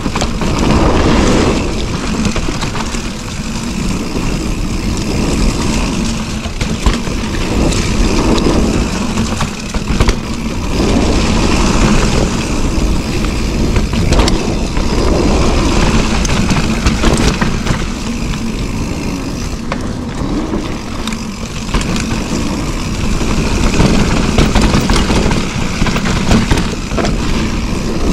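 Mountain bike riding fast down a dirt singletrack: a heavy rumble of wind on the microphone over the tyres rolling on dirt, with frequent small knocks and rattles from the bike over the bumps.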